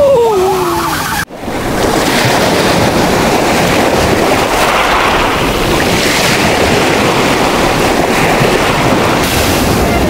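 Storm waves on the Black Sea crashing against concrete shore slabs and rushing back, a steady loud surf with wind on the microphone. At the very start a voice gives a falling exclamation as a wave bursts into spray, and the sound cuts out for an instant just over a second in.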